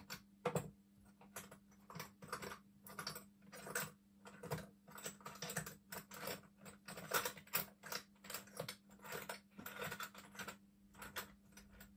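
Small metal paint tins clicking and clattering against one another as they are rummaged through, a quick, irregular run of light knocks.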